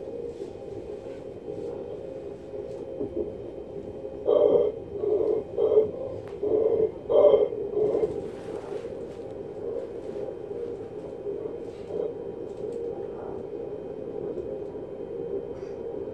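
Running noise inside an ES2G Lastochka electric train in motion: a steady hum with faint steady whining tones above it. About four to eight seconds in, a few short loud bursts stand out over the hum.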